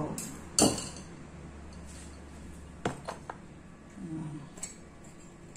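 Dishes clinking on a tabletop as ceramic bowls and a wire whisk are handled beside a glass mixing bowl: one sharp knock about half a second in, then a few lighter clinks around three seconds.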